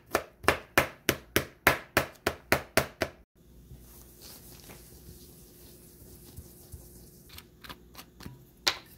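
Kitchen knife rapidly chopping garlic cloves on a plastic cutting board: sharp, even knocks about three a second, stopping abruptly about three seconds in. A few light clicks and one sharper tap follow near the end.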